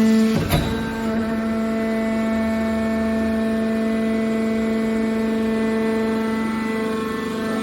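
Hydraulic metal baler running with a steady humming whine, and one metallic clank about half a second in.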